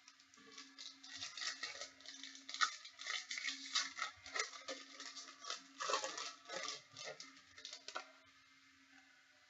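Rapid crinkling and rustling of trading-card packs and their foil wrappers being handled and torn open, lasting about eight seconds before it stops.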